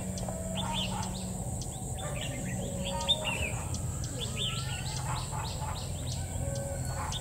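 Red-whiskered bulbul calling in short chirps and quick whistled notes, scattered through, over a low steady hum.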